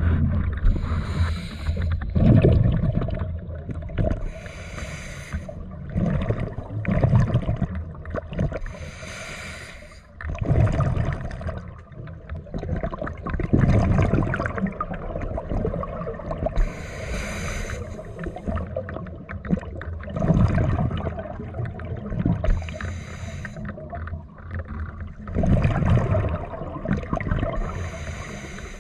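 Scuba diver breathing through a regulator underwater: a hissing inhalation through the regulator alternating with a rush of exhaled bubbles, repeating every few seconds.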